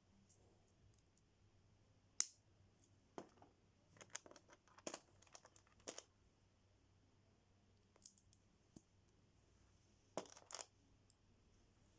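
Lego bricks and plastic packaging being handled: scattered sharp clicks and crinkles, with the loudest click about two seconds in, a cluster around the middle and another near the end.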